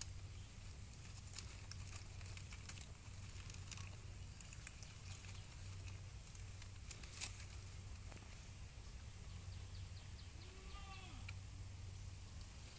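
A goat browsing in leafy undergrowth: scattered sharp snaps and tearing of leaves and stems as it feeds, the loudest snap about seven seconds in. About ten and a half seconds in comes a short, faint bleat that rises and falls.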